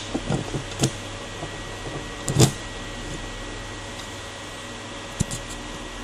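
Steady background hum and hiss with a few light knocks in the first second, one louder thump about two and a half seconds in, and a single click near the end.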